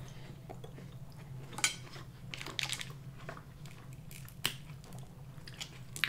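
Close-up eating sounds: chewing crab meat and cracking Dungeness crab leg shell by hand, heard as scattered sharp crackles and clicks. The loudest crack comes about four and a half seconds in, over a faint steady low hum.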